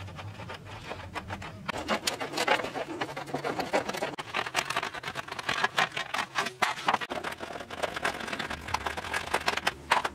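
Hand shears cutting through a thin flattened tin sheet: an irregular run of short, crisp snips with the sheet metal scraping and rattling as it is worked.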